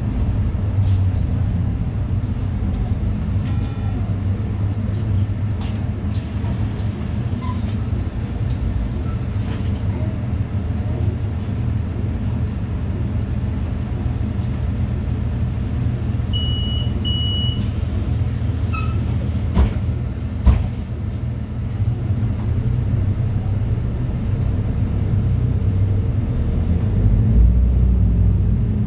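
Inside a moving city bus: a steady low engine and road rumble with light rattles. A short double beep sounds around the middle, and two sharp knocks from jolts come a little later.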